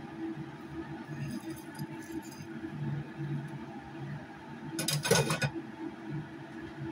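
Kitchen clatter: a plate and utensils clinking against a metal wok as fish is slid into the sauce, with a louder clatter about five seconds in, over a steady low hum.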